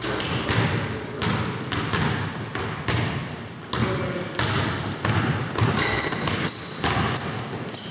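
Basketball bouncing on a hardwood gym floor during a game, with several sharp hits echoing through a large hall. Rubber-soled sneakers squeak on the floor in short high squeals, mostly in the second half.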